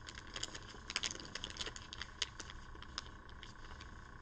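Faint, irregular crinkling and small clicks of a thin plastic bag of game dice being handled and turned over in the hands.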